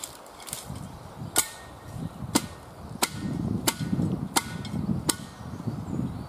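Cold Steel Special Forces shovel chopping firewood: six sharp blows, about one every two-thirds of a second, starting over a second in.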